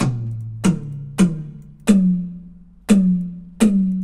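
Aroma TDX-25 electronic drum kit's Tom 1 sound, struck six times at an uneven pace, each hit a short decaying tom tone. Its pitch steps higher over the strikes as the module's pitch setting (virtual head tension) is raised.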